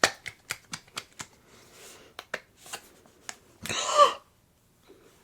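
Sour cream container and utensils handled while topping food: a run of light, irregular clicks and taps over the first three seconds, then one short squeaky sound with a rising pitch about four seconds in.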